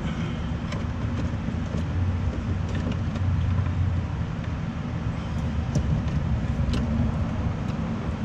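Steady low rumble, with scattered light clicks and ticks of a plastic fog-light wiring harness connector being worked off the old bulb by hand.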